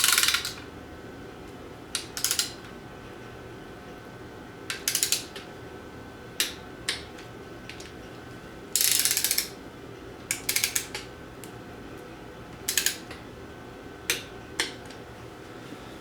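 A torque wrench ratcheting in short bursts of sharp clicks, about ten bursts spaced a second or two apart, as timing cover bolts are run down to 15 foot-pounds.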